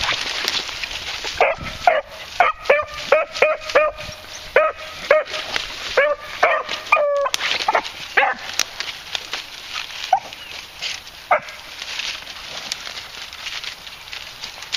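Beagles yelping in a quick series of short, high yips, about four a second, which stops about seven seconds in. After that only a few single yips are heard over a rustle of brush and pine boughs.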